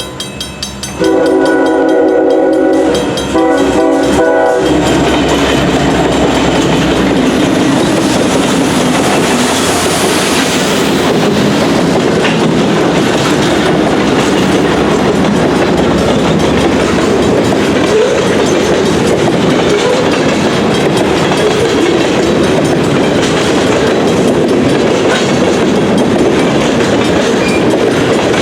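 Horn of a CN freight train's lead SD70M-2 diesel locomotive, sounded in two short blasts that end about four and a half seconds in. After that, the train's cars roll past close by with a steady loud rumble of wheels on rail and clickety-clack.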